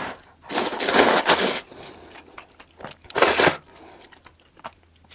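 Close-miked eating sounds, crackly and noisy: one loud burst about a second long starting about half a second in, a shorter one a little past the middle, and faint small clicks between them.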